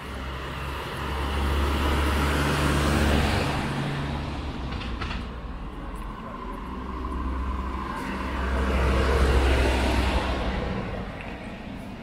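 Two cars driving past on the street, each one coming up and fading away: the first is loudest about three seconds in, and the second, louder one near the end.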